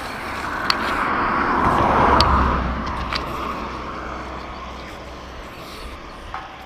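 A vehicle passing by, rising to its loudest about two seconds in and then slowly fading away, with a few sharp clicks over it.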